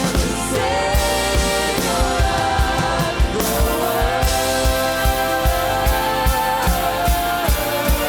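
Contemporary worship band playing live, with sung notes held long over a steady kick-drum beat.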